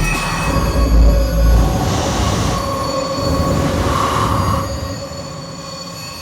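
Experimental electronic music: high, screeching tones held over deep bass swells, thinning out and getting quieter near the end.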